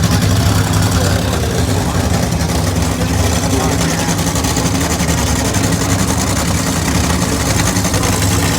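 A loud, steady low mechanical hum, like a motor or engine running.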